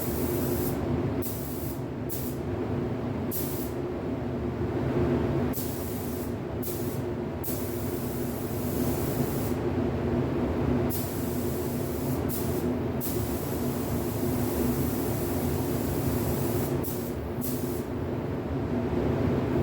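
Paint spray gun hissing in repeated short passes, switching on and off every second or so, over a steady low machine hum.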